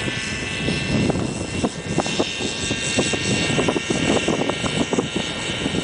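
Align T-Rex RC helicopter running with a steady high whine over uneven low thumping, skimming just above the grass after its tail rotor (anti-torque) has failed.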